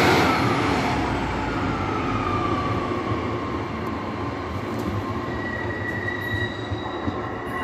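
Two coupled EMR Regional Class 153 diesel railcars pulling away and fading into the distance. Steady rumble, with thin high wheel squeals rising in the second half as the wheels take the curve.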